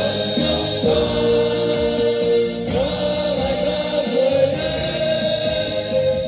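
A group of voices singing a Vietnamese military song over instrumental accompaniment.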